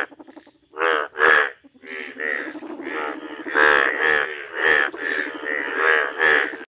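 A breeding chorus of male Indian bullfrogs croaking. Two separate calls come in the first second and a half. Then many overlapping calls run almost unbroken and stop abruptly near the end.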